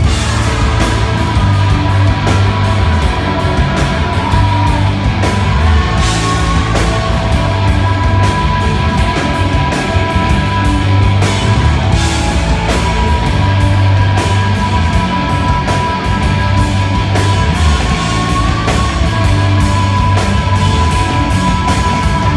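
Rock band playing loud and live: electric guitars, bass and drum kit driving along with a steady drum beat and a long held guitar tone.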